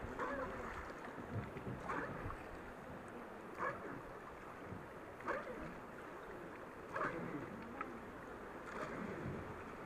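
Oars being worked on a wooden river boat, a stroke sounding about every 1.7 seconds over the steady rush of fast river water.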